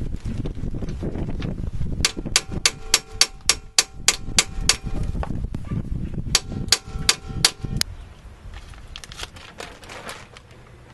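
Hammer blows on a steel bearing driver, seating a new axle bearing into a Dana 35 axle tube: a quick run of sharp metal strikes, about three a second, each with a short metallic ring. They pause briefly about five seconds in, then resume, and turn to lighter taps near the end.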